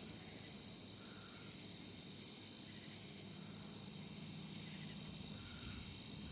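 Night insect chorus: crickets trilling steadily and high-pitched, with a fainter short call repeating about every two seconds.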